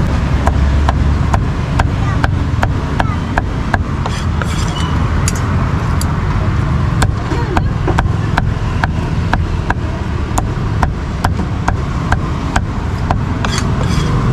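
Cleaver chopping roast beef on a thick round wooden chopping block, with steady sharp strikes about three a second, over a low rumble of road traffic.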